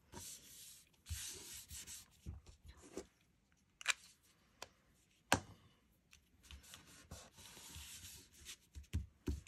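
Hands rubbing and smoothing a patterned paper panel down onto a cardstock card base: a soft, papery swishing in the first couple of seconds and again for a few seconds near the end, with a few sharp clicks in between.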